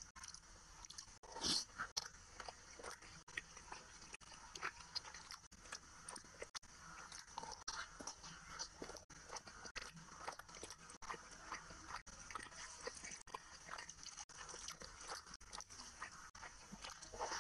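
Close-miked eating sounds: a person chewing and smacking through hand-eaten mouthfuls of rice and curry, with wet squelches of fingers working the rice and gravy. A steady run of small wet clicks, with one louder one about a second and a half in.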